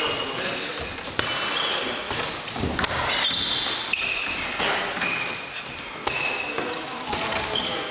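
Students practising hurricane kicks in a training hall: a handful of sharp thuds from kicks striking targets and feet landing, every second or two, with short high squeaks between them.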